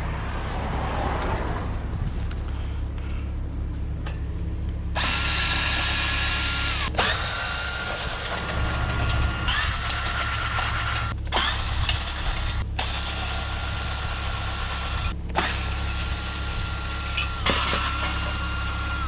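A power drill running in repeated bursts of a couple of seconds, its motor whine steady in pitch and winding down at the end of each run. A low steady hum runs underneath, and the first few seconds hold only rustling and handling noise before the drill starts.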